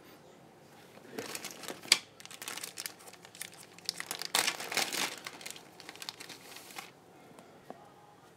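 Clear zip-lock plastic bag crinkling as it is handled and pulled open, with one sharp snap about two seconds in.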